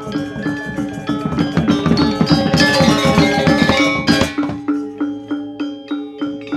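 Balinese gamelan music: bronze metallophones and gongs playing a fast, dense, loud passage with a burst of high clashing about two to four seconds in, then thinning to a steady, evenly spaced beat of struck notes.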